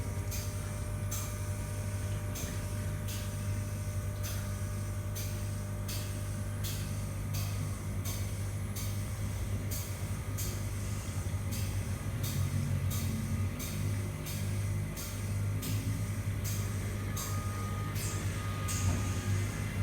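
Steady low machine hum with short, regular hissing pulses about one and a half times a second.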